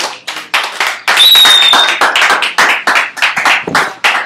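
A small group of people clapping as a song finishes, the separate claps irregular, with a short whistle about a second in.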